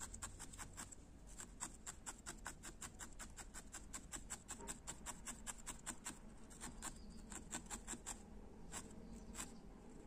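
Barbed felting needle stabbing again and again into wool: a soft, fast run of crisp pokes, about five a second, as a white wool eye is felted onto the wool body by dry needle felting.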